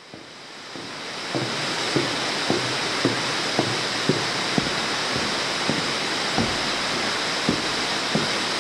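Steady rushing of water echoing in a cave, fading up over the first second or so. Short knocks or drips come roughly twice a second.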